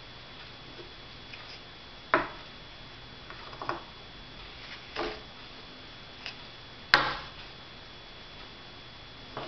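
Notched wooden burr-puzzle sticks clicking against each other and knocking down on a tabletop as they are fitted together: a handful of short, sharp wooden knocks, spaced out, the loudest about two seconds in and again about seven seconds in.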